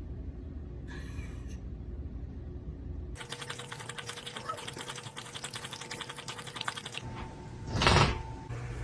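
A rapid, dense run of clicks or rattling for about four seconds, starting about three seconds in, over a low hum, followed by a short loud burst near the end.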